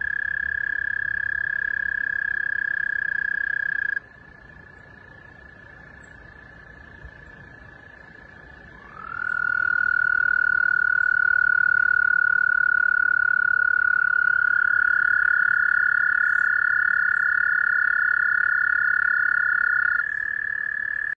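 Toads trilling in long, steady, high trills. One loud trill stops about four seconds in while a fainter one carries on. About nine seconds in, a near toad starts a loud trill that slides up briefly and then holds, and a second, slightly higher trill overlaps it for several seconds before both stop near the end.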